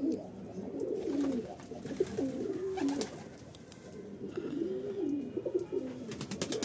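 Several domestic pigeons cooing, their wavering low coos overlapping one another without a break.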